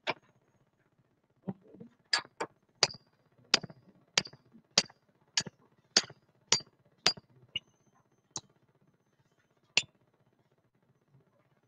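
A hammer tapping the steel halves of a lugless joining shackle together, about fifteen short metallic strikes that ring. They come at an even beat of nearly two a second in the middle, with a last strike near the end.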